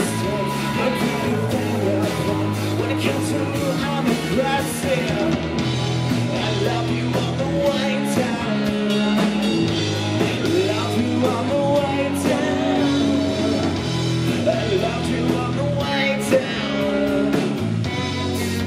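Live rock band playing electric guitars, bass and drums, with a man singing over them.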